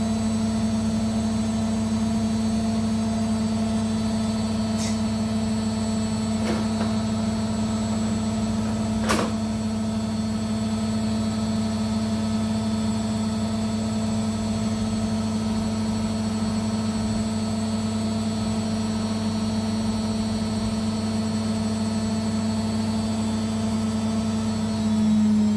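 Arctic APL61015XLW0 washing machine running with a steady motor hum, with a few faint clicks or knocks in the first ten seconds. The hum grows louder near the end.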